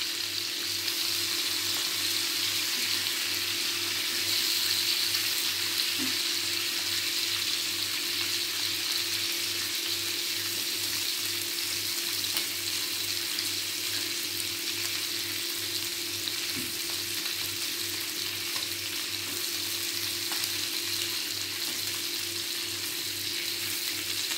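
Marinated mutton rib chops shallow-frying in a little oil in a flat pan, with a steady, even sizzle.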